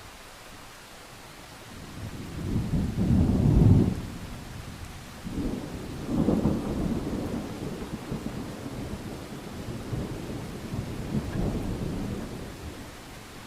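Thunder rumbling over steady rain: a deep rumble builds about two seconds in and peaks near four seconds, a second peal follows a couple of seconds later, and the rumbling trails off before the end, leaving the rain hiss.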